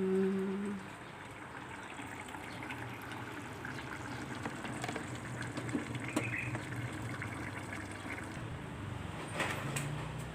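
Steady watery sound of liquid, with a few light clicks near the end.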